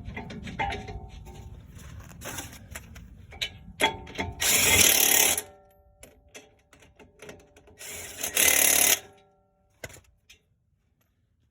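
Scattered clicks of hand work on the brake caliper bracket bolts, then two bursts of about a second each from a power tool, about four and eight seconds in, running the thread-locked caliper bracket bolts in.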